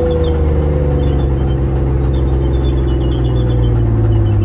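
Chieftain tank's Leyland L60 two-stroke multi-fuel engine working hard as the tank climbs a mound of earth, a steady low drone that grows a little louder near the end.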